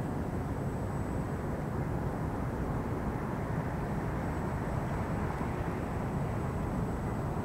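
Steady low rumble of distant city traffic, even and unbroken, with no single passing vehicle or other event standing out.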